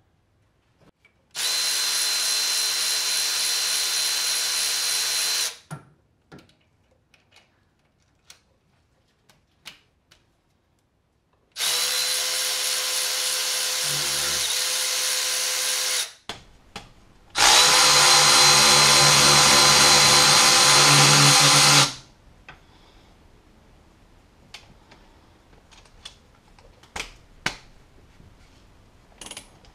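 A cordless ratchet spinning out rocker-shaft bolts on a 5.7 Hemi's cylinder head, in three bursts of about four seconds each with a steady motor whine; the third is the loudest. Light metallic clicks of parts being handled fall between the bursts.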